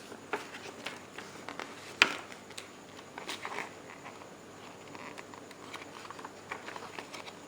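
Small plastic accessories and their packaging being handled: scattered light clicks and rustling, with one sharper click about two seconds in.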